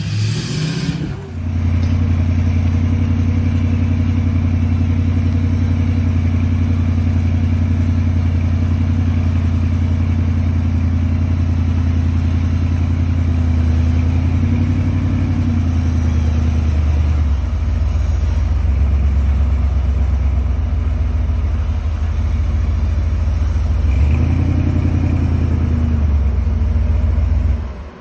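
Early Ford Bronco rock crawler's engine running at steady revs as it works up a steep dirt slope. Its pitch drops about two-thirds of the way through and rises again near the end.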